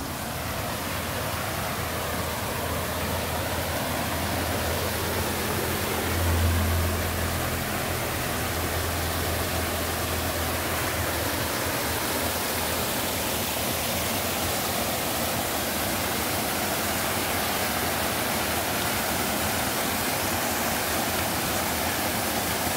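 Floodwater from a small dam spilling over a concrete ledge below its culvert pipes, a steady rushing pour of a waterfall into the flooded creek. A brief low rumble about six seconds in.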